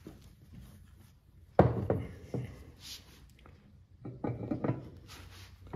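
Cast-iron lathe headstock being handled and set onto the lathe bed: a sharp clunk about one and a half seconds in, a few lighter knocks after it, and a quick cluster of metal knocks near the end as it is moved into position.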